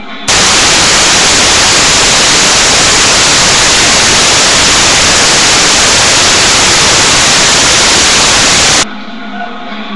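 Loud, steady white-noise static hiss that cuts in suddenly just after the start and stops abruptly about a second before the end.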